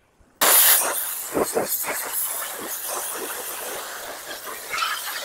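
Pressure washer wand spraying a high-pressure water jet at the base of vinyl siding: a loud, steady hiss of spray that starts suddenly about half a second in.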